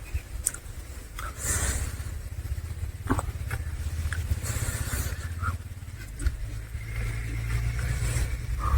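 Close-miked eating sounds: chewing, lip smacks and short wet clicks of a mouthful of rice and curry, over a steady low rumble.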